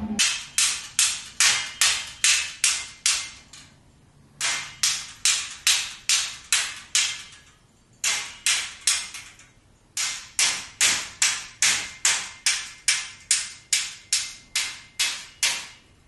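A rhythmic run of sharp strikes, about three a second, each fading quickly, broken into four stretches by short pauses.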